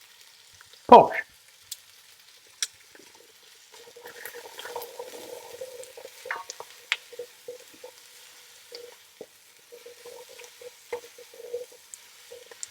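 Onion, carrot and celery softening in olive oil in a Dutch oven: a gentle sizzle, with scattered clicks and scrapes of stirring, growing a few seconds in.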